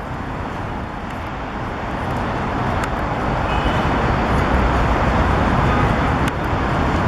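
Busy city street traffic: the steady rumble and hiss of passing cars, growing louder over the first few seconds.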